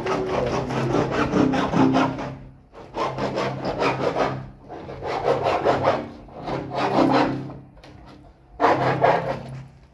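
Quick rasping strokes of a hand tool working on pipe, in five runs of one to two seconds each with short pauses between. A steady low hum lies under them.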